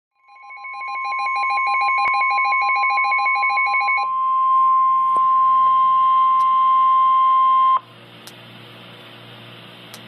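NOAA Weather Radio 1050 Hz warning alarm tone, the steady attention signal that comes before a broadcast warning, here for a Severe Thunderstorm Warning. For the first four seconds the weather radio receiver's own rapid pulsing alert beep sounds over it. The tone cuts off suddenly near the eighth second, leaving a low hum and hiss.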